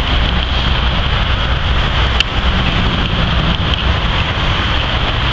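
Motorway traffic of lorries and cars driving past: a steady low rumble of engines with tyre hiss, and wind on the microphone.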